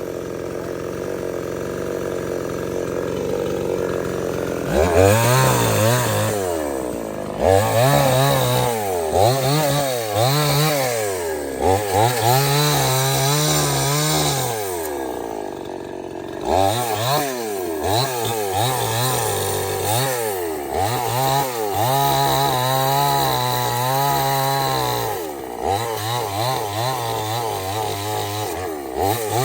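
Stihl 070 chainsaw's big two-stroke engine running at low speed for the first few seconds, then revving up and falling back again and again as it cuts wood.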